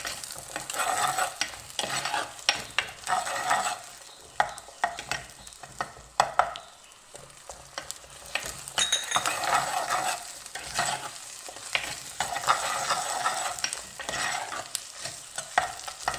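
Metal ladle stirring and scraping through vegetables frying in oil in a clay pot, in repeated strokes with short pauses. Sharp clicks of the ladle against the pot sit over a steady sizzle of hot oil.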